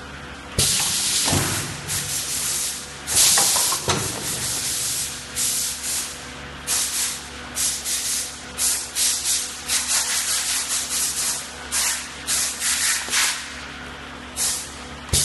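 Paper baking-mold forming machine running: repeated short bursts of noise over a faint steady hum, irregular at first and then about two a second, with a couple of low thumps in the first few seconds.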